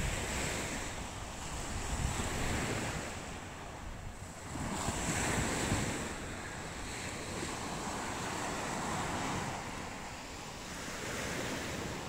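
Sea waves breaking and washing up the shore, the surf swelling and ebbing every few seconds, with wind buffeting the microphone.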